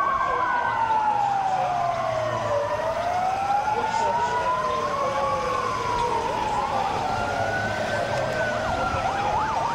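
Several emergency-vehicle sirens sounding together. One slow wail rises and falls about every five seconds, with a second higher wail and faster sweeping sirens over it.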